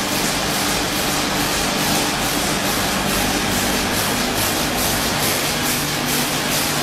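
Automatic coal-granule packing line running: the bucket elevator and packing machine give a steady mechanical hum under a fast, even rattle.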